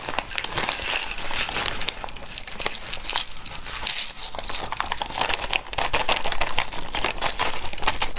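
Clear plastic bag crinkling as it is squeezed and shaken, with many quick clicks of cooked snail shells tumbling out onto a plate.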